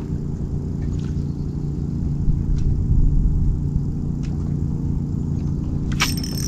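Boat's electric trolling motor running with a steady low hum and rumble, a few light clicks over it, and a brief sharp scrape near the end.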